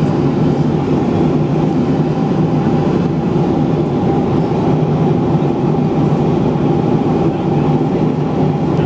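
Steady, continuous vehicle rumble.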